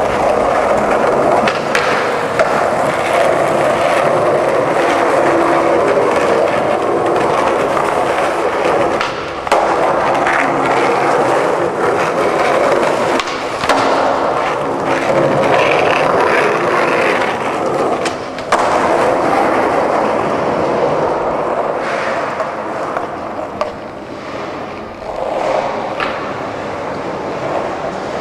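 Skateboard wheels rolling steadily on the smooth concrete floor of a covered car park, broken by a few sharp clacks of the board popping and landing tricks.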